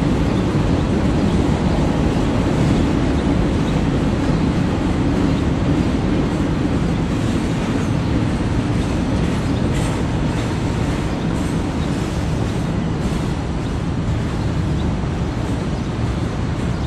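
Freight train of boxcars rolling past at close range: a steady rumble of steel wheels on the rails, with a couple of faint clicks about ten and thirteen seconds in.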